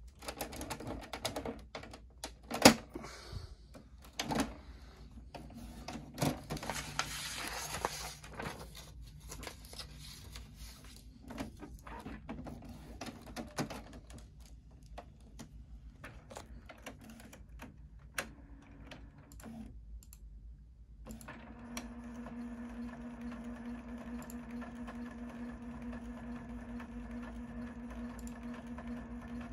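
Plastic clicks and knocks as the Canon PIXMA MG6220 inkjet printer is handled and its scanner unit closed, one knock much louder than the rest early on. After a short lull about two-thirds of the way in, the printer's internal mechanism starts a steady, pitched whirring hum as it processes after new ink cartridges are installed.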